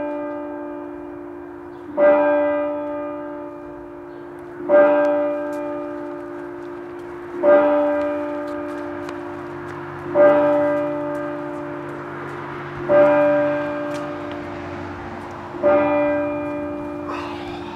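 A single church bell tolling: slow, even strokes a little under three seconds apart, each the same note, ringing out and fading before the next.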